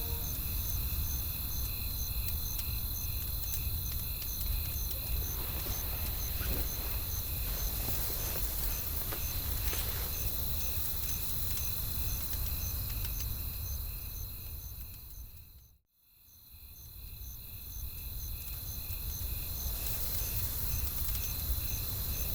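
Night ambience of crickets chirping in a steady, even rhythm over a low wind-like rumble, with a few faint wood-fire crackles. The whole bed fades out about 16 seconds in and fades back up.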